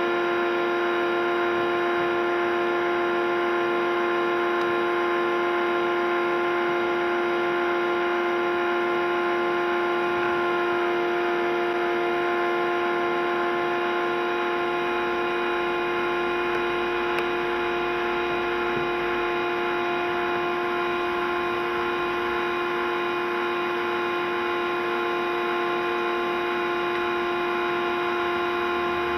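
Michelin MPX 120 B electric pressure washer running steadily, its motor and pump giving a constant hum that does not change.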